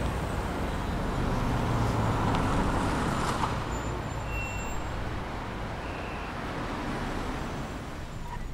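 A Toyota Highlander SUV driving past: engine and tyre noise swelling to a peak about two to three seconds in, then easing off as it moves away, over steady street traffic.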